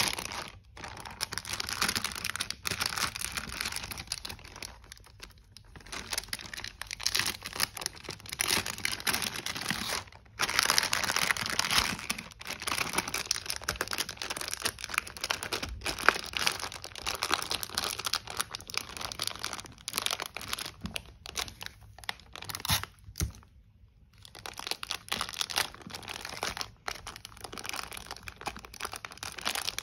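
Clear plastic packing bag crinkling and rustling as hands slide a clear plastic ring binder into it and fold the bag around it, in irregular bursts with a few brief pauses.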